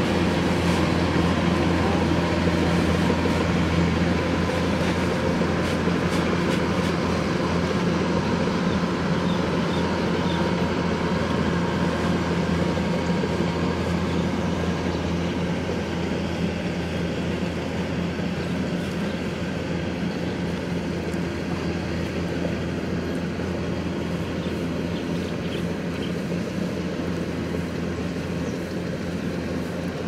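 Diesel engine of a Kubota combine harvester running steadily with a low, even hum, slowly growing fainter.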